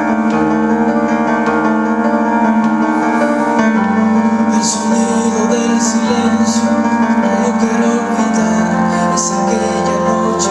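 Keyboard music: sustained chords that change every few seconds, with bright crisp accents in the high end from about halfway through.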